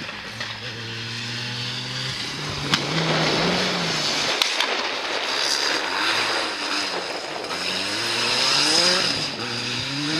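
Rally car engine at full effort, its pitch climbing and dropping repeatedly as it changes gear, over a loud rush of tyre and road noise. Two sharp cracks come about a third and halfway through.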